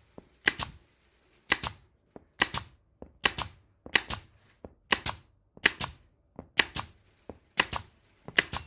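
Jeil Taka F30 pneumatic brad nailer being fired again and again after its pins were refilled. There are about ten sharp shots, roughly one a second.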